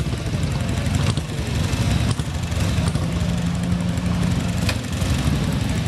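Classic motorcycle engine running at idle close by, a steady low beat with a held low tone through the middle and a few light knocks.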